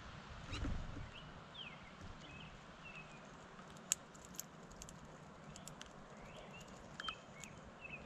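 Small songbirds giving short chirps and slurred call notes, with scattered sharp clicks and taps close to the microphone, the loudest about four seconds in. A low thump comes about half a second in.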